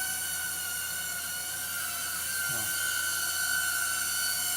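Cheerson CX-10D micro quadcopter hovering low, its tiny motors and propellers giving a steady high-pitched whine that wavers slightly in pitch around the middle.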